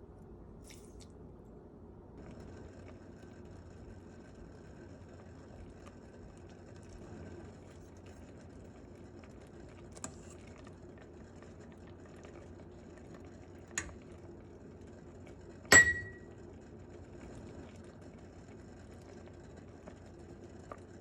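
Kitchen utensils clinking against cookware over a low, steady hum: two light clicks, then one loud ringing clink near the end.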